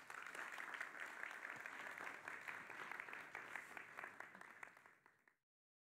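Audience applauding, many hands clapping at once; the applause tails off and cuts to silence a little after five seconds in.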